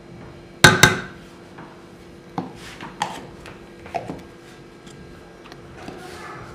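Kitchen clatter of hard items knocking: two sharp knocks in quick succession about half a second in, the loudest, then three lighter taps over the next few seconds.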